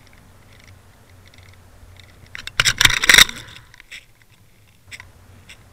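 Tsunami ball bearing swivel on a tube-and-worm trolling rig clicking as the spinning tube lure turns it, heard underwater through the towed camera's housing. A louder rattling clatter comes about two and a half seconds in and lasts under a second, with single clicks after it.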